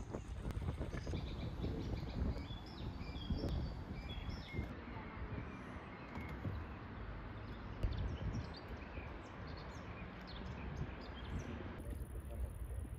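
Birds giving short high chirps, most of them in the first few seconds, over a steady low outdoor rumble.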